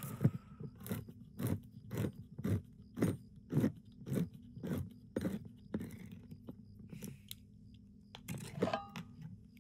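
A person chewing food close to the microphone at about two chews a second. The chewing grows softer after about six seconds, and a louder burst of mouth noise comes near the end.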